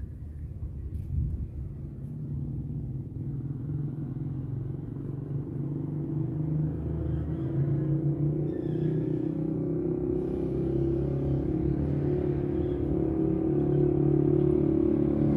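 Motorcycle engine running steadily, growing louder as it approaches.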